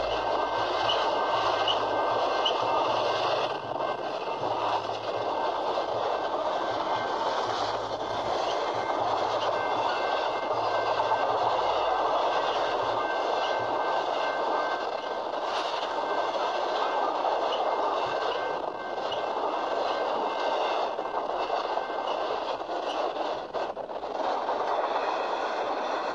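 Intermodal freight train of highway trailers on flatcars rolling past at close range: a steady rumble and clatter of steel wheels on the rails.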